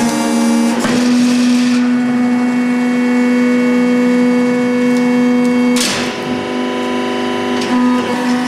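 Hydraulic log-splitting press running with a steady motor-pump whine as its wedge ram splits an oak billet. A short noisy burst cuts across it about six seconds in.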